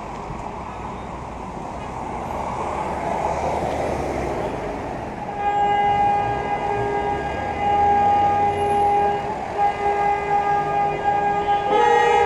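A horn held long and steady, coming in about five seconds in and sounding on with brief breaks, over a background of traffic noise.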